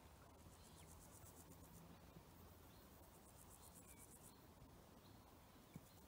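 Faint countryside ambience: insects chirping in fast, high-pitched pulsed trills that come and go in stretches of a second or so. A few short, distant bird chirps sound over a faint low background rumble.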